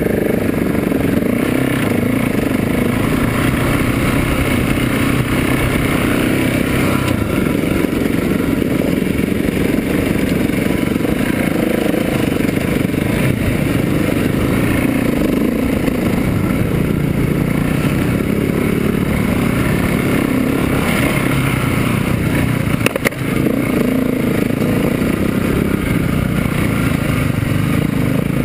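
KTM 690 SMC's single-cylinder engine running at low trail speed, with the bike rattling and scraping over rocky ground. A sharp knock is heard about four-fifths of the way through.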